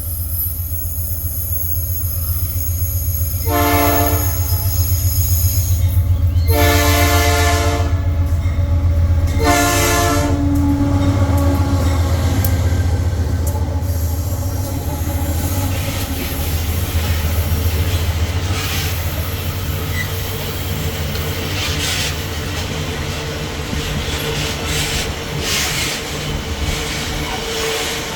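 Diesel locomotives of a loaded iron-ore freight train passing with a steady low engine rumble, the horn sounding three times in the first ten seconds. Then the loaded ore wagons roll by with rhythmic wheel clatter and some wheel squeal.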